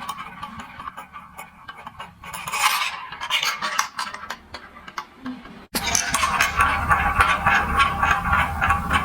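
Marbles rolling and clattering through a plastic building-block marble run: a busy stream of small clicks and rattles. About two-thirds of the way through the sound drops out for an instant and comes back louder and denser.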